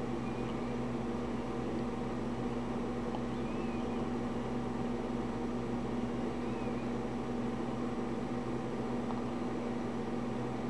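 Steady low hum with a constant hiss, unchanging throughout: a running fan or electrical hum.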